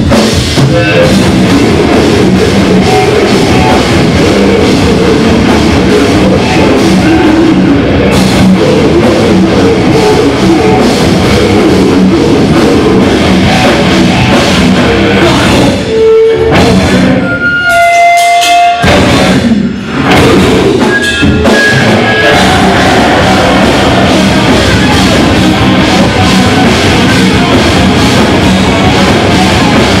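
Live metal band playing loud, with distorted electric guitars and a drum kit. About halfway through the band briefly drops away, leaving a few held high notes, then the full band comes back in.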